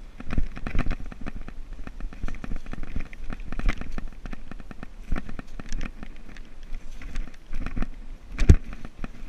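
Scuffing, knocking and rubbing of someone crawling through a narrow earthen tunnel with the camera held close, in irregular bumps and scrapes, with one louder knock near the end.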